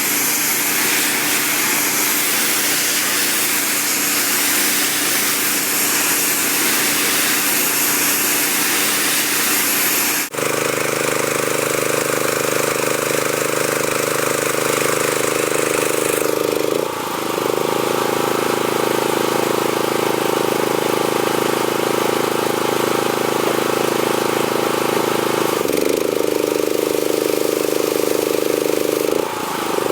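Gas-engine pressure washer running steadily, with the hiss of high-pressure water spray over the engine at first. After an abrupt cut about ten seconds in, the engine's steady drone dominates and the spray is much fainter.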